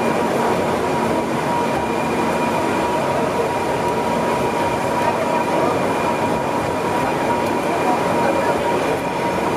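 Electric rack train of the Montenvers line running uphill on its Strub rack, heard from the front of the car: a steady running noise with a steady high whine.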